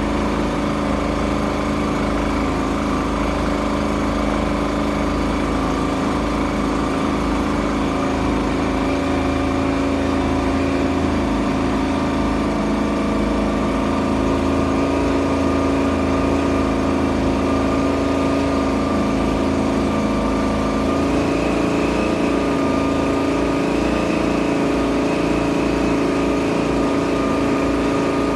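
Boat engine running steadily under way, its pitch rising slightly about three-quarters of the way through.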